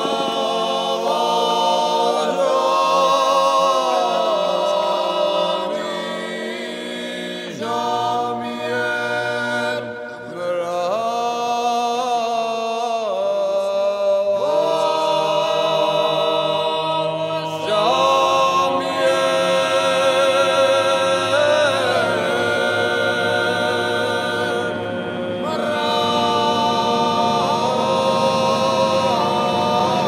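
A group of voices singing unaccompanied in harmony, in long held notes, with short breaks between phrases.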